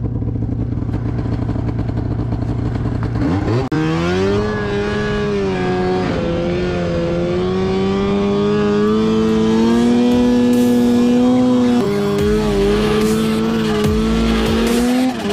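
2006 Arctic Cat M7 snowmobile's two-stroke engine running at low speed, then revving up about three and a half seconds in as the sled accelerates across the snow. It holds a high, steady note that slowly climbs, dips briefly near the end and picks up again.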